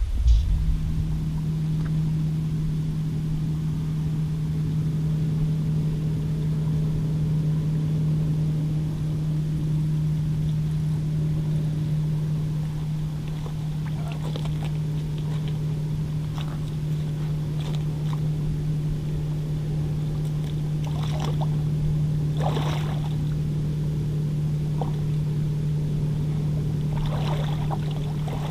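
A steady low motor hum, with splashing in the shallows during the last several seconds as a hooked bass is brought in.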